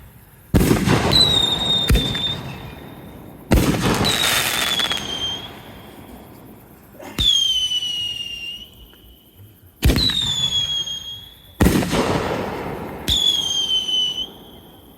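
A consumer canister-shell firework fires six shots about two to three seconds apart. Each is a sharp bang followed by a high whistle that drops slightly in pitch and a fading hiss.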